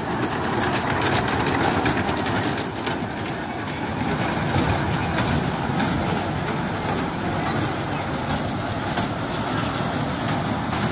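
Mall-type ride-on kiddie train running along its ground-level track: a steady rumble with scattered clicks from the wheels on the rails. Voices can be heard now and then.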